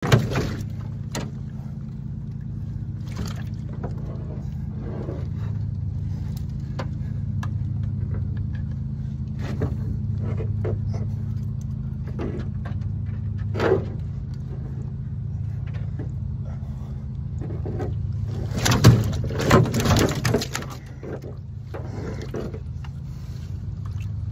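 Blue catfish flopping and splashing in the wet bottom of a canoe: scattered knocks and slaps over a steady low hum. About nineteen seconds in comes a louder flurry of thumps and splashes lasting a couple of seconds.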